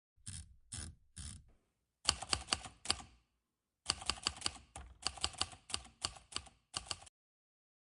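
Typing keystrokes: three separate key clicks, then a quick run of clicks lasting about a second, a short pause, and a longer run of about three seconds.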